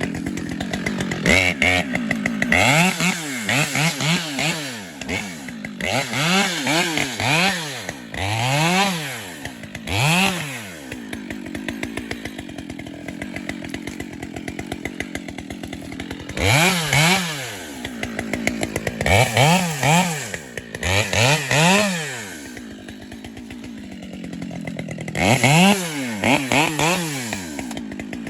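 Chainsaw revving up and dropping back to idle again and again, about ten short bursts with idle between them, as it trims small brush and saplings around the base of a tree.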